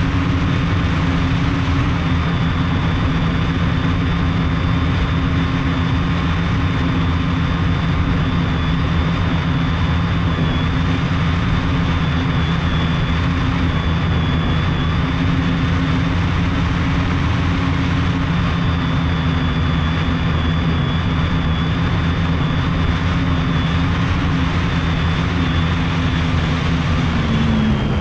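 Multirotor drone's electric motors and propellers running steadily, heard from a camera on the airframe: a steady buzz with a high motor whine over it. Near the end the pitch drops as the motors change speed.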